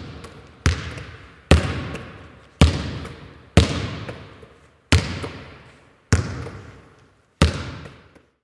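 A series of sharp thuds about a second apart, each followed by a long, echoing fade.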